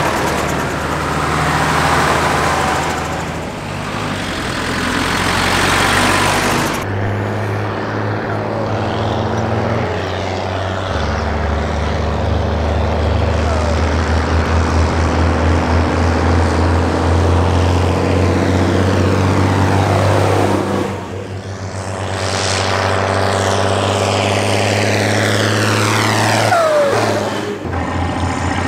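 Diesel engines of Mercedes-Benz MB trac tractors and a Unimog driving past one after another, a steady engine drone. Near the end the pitch drops as one passes close.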